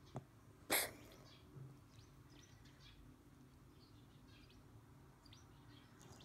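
Faint, scattered bird chirps over a low steady background hum, with one short, sharp noisy burst just under a second in, the loudest sound.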